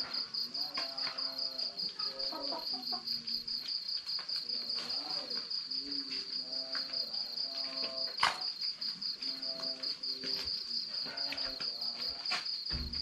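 Cricket chirping steadily, a high, even, rapidly pulsing trill, with scattered clicks and one sharp pop about eight seconds in.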